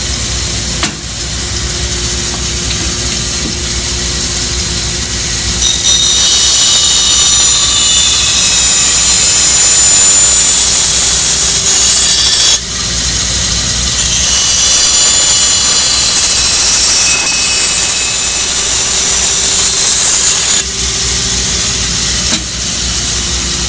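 Bandsaw running steadily while it cuts a duck decoy head out of a wooden block. It makes two long cuts of several seconds each with a short break between them, and the blade whines high while it is in the wood.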